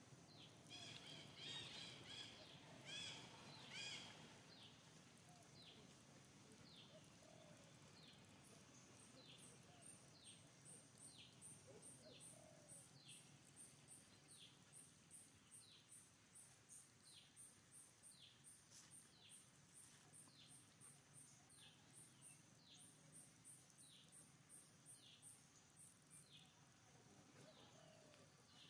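Faint outdoor ambience of birds chirping, short repeated downward chirps, a little louder in the first few seconds. A fast, high-pitched pulsing trill joins about a third of the way in and stops near the end.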